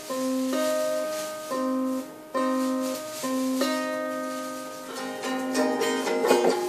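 Chords strummed on a small toy guitar, each held about a second before the next one. About five seconds in the strumming turns quicker and louder.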